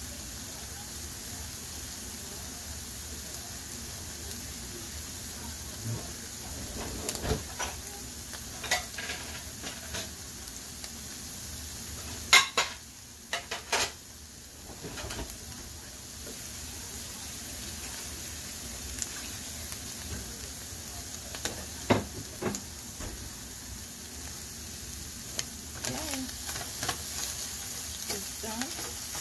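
Scrambled eggs with vegetables sizzling steadily in a Gotham frying pan, with scattered sharp clicks and knocks, the loudest two about twelve and fourteen seconds in. Near the end a slotted spatula stirs the eggs, scraping and tapping against the pan.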